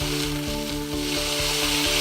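Background music with sustained notes and a steady low beat, over a continuous loud hiss like sizzling.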